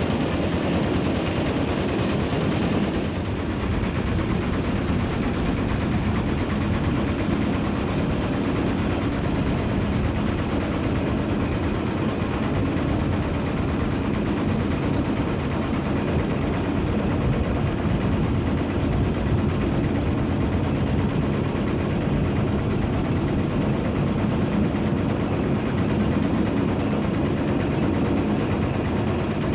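A steady, fast mechanical rattle over a low drone, like a diesel engine running close by; it holds at one level throughout.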